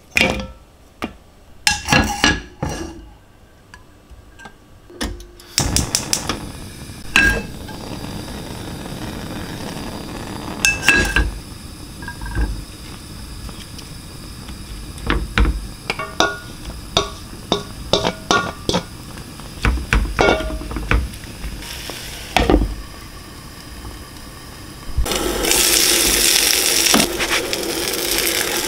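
Kitchen work: dishes and utensils clinking and knocking in a string of separate taps over a steady low hiss. Near the end comes a louder rushing noise lasting about two seconds.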